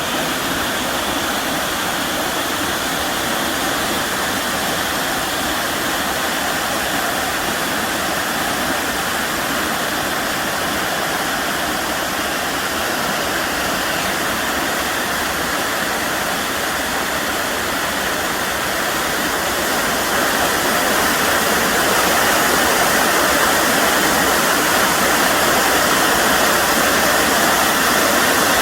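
A waterfall rushing: a steady, dense noise of falling water, growing a little louder about two-thirds of the way through.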